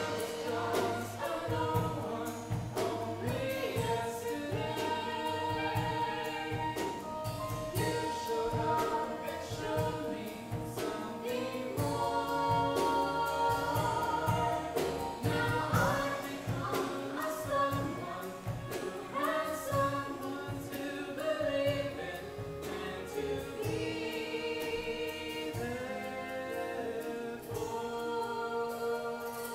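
A musical theatre song: a girl singing over instrumental accompaniment.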